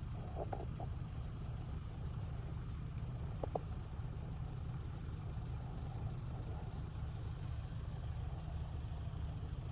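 Steady low rumble of a car running, engine and road noise heard from inside the cabin, with two brief faint high blips about half a second and three and a half seconds in.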